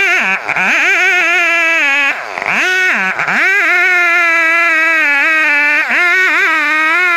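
Chainsaw engine running at high revs, its pitch dropping sharply and briefly several times, most deeply about two seconds in.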